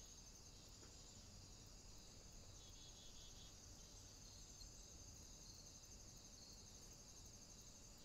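Near silence, with a faint, steady, high-pitched insect trill.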